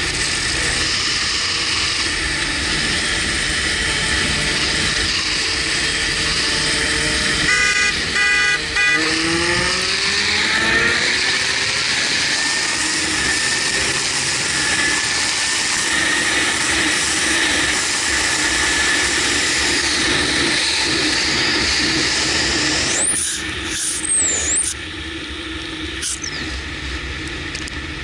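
Wind rushing over the microphone of a Kawasaki Versys 1000 at highway speed, with its inline-four engine running underneath. About nine seconds in a rising whine comes in as the engine pulls, and a few seconds before the end the rush drops off as the bike slows.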